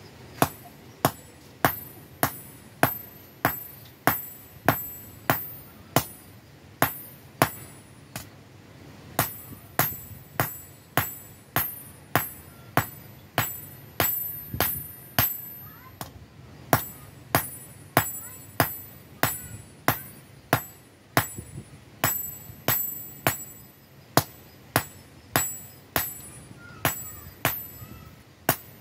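Hand hammer forging a red-hot badik blade blank on a cylindrical steel anvil block. The metal is steel from an old diesel-engine bearing. Steady blows come about two a second, each with a bright metallic ring, with a short pause about eight seconds in.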